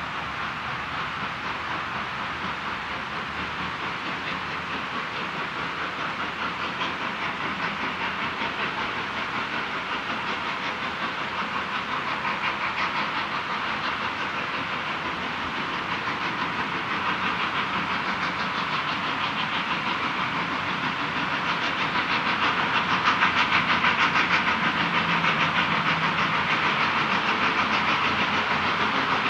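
Steam locomotive working hard up a grade, its exhaust a rapid, steady chuffing over a continuous hiss, growing gradually louder.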